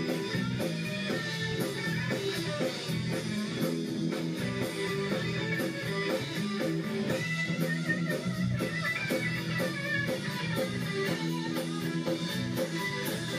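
A live rock band playing: electric guitars over bass and drums, with a steady beat.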